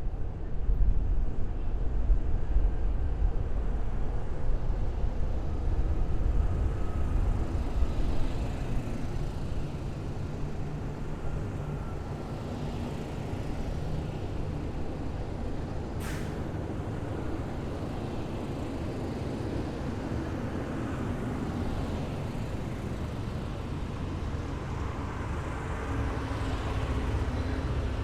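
Heavy military vehicles passing in a column, their engines making a steady low rumble that swells again near the end. A single sharp click sounds about sixteen seconds in.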